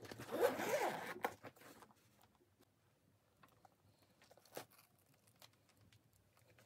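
Zipper on a fabric laptop bag being pulled open for about a second and a half, then near quiet with a few faint clicks.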